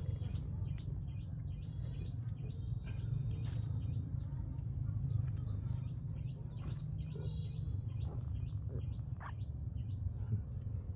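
Bird chirping: many short, quick high notes repeated again and again, over a steady low hum.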